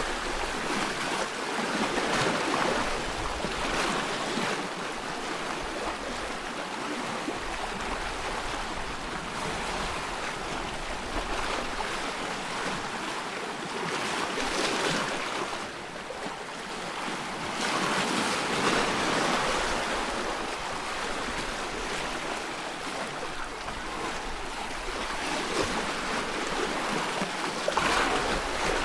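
Sea waves breaking and washing over a rocky shore: a continuous rushing wash that swells with each wave every few seconds.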